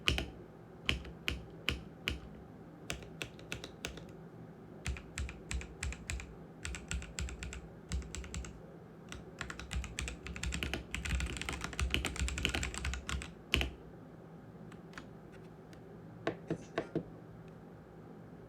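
Koorui MK082 75% mechanical keyboard with red linear switches being typed on: separate key presses at first, then a burst of fast typing, and a last few presses before the keys stop short of the end.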